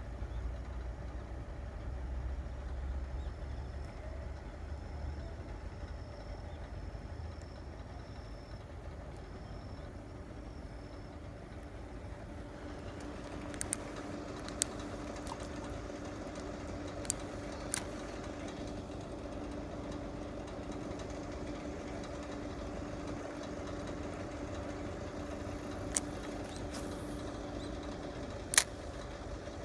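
A steady mechanical hum like a distant engine running, which stops abruptly near the end. A handful of sharp clicks come through in the second half.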